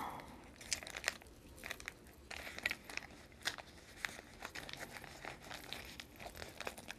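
Faint crinkling and rustling of plastic-wrapped panty liners and wipes being pushed around inside a fabric zipper pouch, with scattered small clicks.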